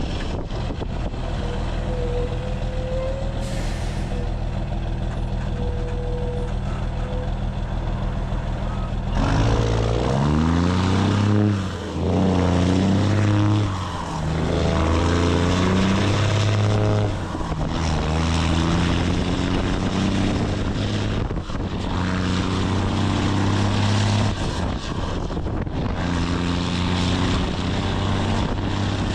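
Cummins diesel truck engine running steadily. About a third of the way in it gets louder and revs up through the gears, its pitch climbing and dropping back several times.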